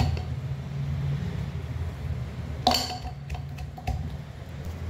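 Wooden pestle pounding garlic, green chillies and ginger in a steel mortar: dull thuds, with a sharp metallic clink a little past halfway and another near the end.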